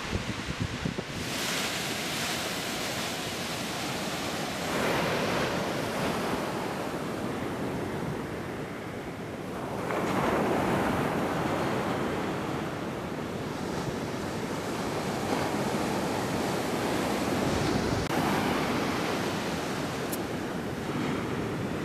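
Ocean surf breaking on a sandy beach: a steady wash of water that swells louder with each breaking wave every few seconds, with wind buffeting the microphone.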